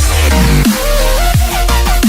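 Electronic background music with a heavy, steady bass and repeated falling synth sweeps.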